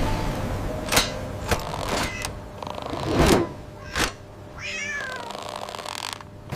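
A short, wavering cat meow about five seconds in, preceded by several sharp clicks or knocks and a brief louder swell.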